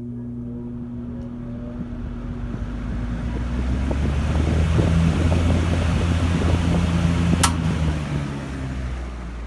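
Vintage Lau 12-inch box fan with a Dayton exhaust fan motor starting up: the motor hums and rises in pitch as the heavy blade comes up to speed, and the rush of air grows louder. A sharp click comes about seven and a half seconds in, after which the air noise begins to fade.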